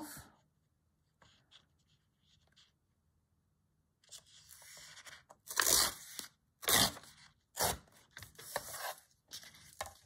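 Watercolour paper being torn against a deckle-edge tear ruler: a run of short, rough rips starting about four seconds in, giving the piece a postage-stamp edge.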